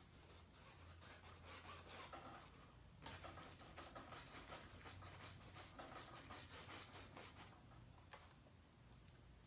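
Faint scratchy rubbing of a bristle brush dragging thick acrylic paint across a canvas in repeated strokes.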